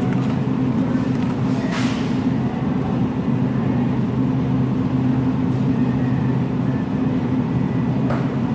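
Steady low hum of grocery-store freezer cases, a constant machine drone made of a few even low tones.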